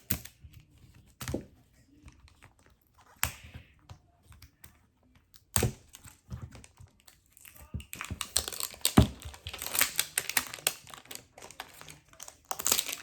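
Thin plastic wrapper being peeled and crinkled off a toy capsule ball. Scattered clicks and taps for the first half, then steady crinkling and rustling from a little past the middle.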